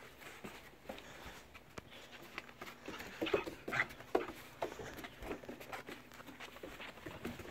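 Irish Wolfhound puppy's claws and paws tapping and scuffing on wooden deck boards as it moves about, in scattered light clicks.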